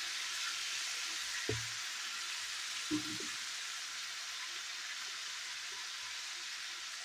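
Minced garlic sizzling in a hot skillet with a steady hiss, and two brief knocks about a second and a half apart.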